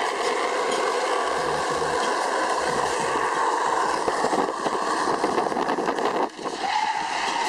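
Steady rush of tyre and wind noise from a car moving downhill, heard through its open side window, with a faint steady high whine. A few knocks come after the middle, and the noise dips briefly about six seconds in.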